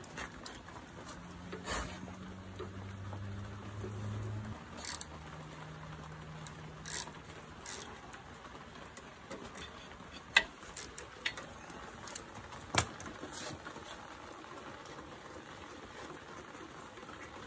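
Scattered light clicks and taps of a wrench and metal fittings being handled at a vintage motorcycle's carburettor, with two sharper clicks about ten and thirteen seconds in. A faint low hum runs through the first half.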